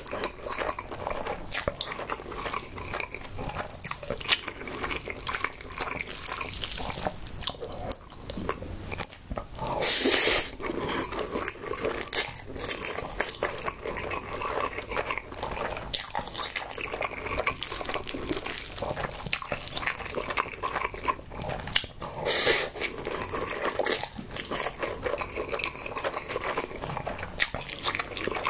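Close-miked chewing of spicy Buldak carbonara ramen noodles: a run of small, wet mouth clicks and smacks. Two longer, louder slurps come about ten seconds in and about twenty-two seconds in.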